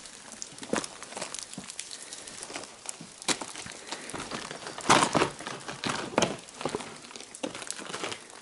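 Footsteps crunching and scraping over loose rock on the floor of a lava cave: irregular crunches with a denser cluster about five seconds in.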